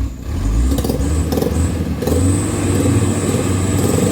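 Mitsubishi Canter HD 125PS truck's diesel engine revving up and running hard under a heavy load of about 7 tons of oil palm fruit while trying to pull out of mud. It builds quickly at the start and gets louder again about two seconds in, then holds steady.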